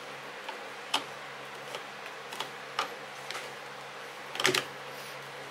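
Screwdriver and screws clicking and tapping against a Husqvarna chainsaw's carburetor mounting as the carburetor screws are driven in: scattered light clicks, with a quick run of louder ones about four and a half seconds in.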